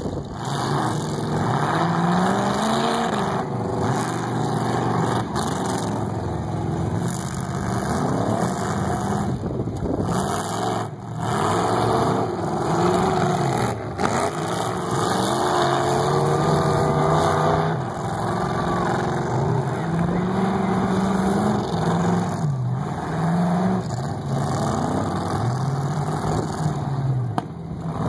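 Several demolition derby cars' engines revving hard and easing off again and again as the cars accelerate, back up and ram each other on a dirt track.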